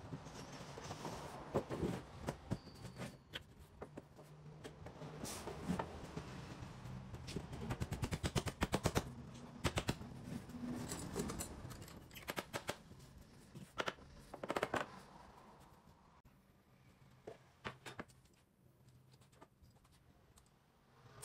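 Laminated board panels being handled and set down on a workbench: a string of knocks and clatters, with a fast rattling run of clicks about halfway through, thinning out to a few quiet clicks in the last seconds.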